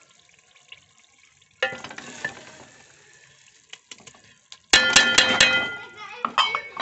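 Hot liquid in an aluminium cooking pot sizzling as a wooden ladleful of mixture goes in, the hiss fading away; about five seconds in, a run of sharp knocks with metallic ringing as the ladle strikes the pot.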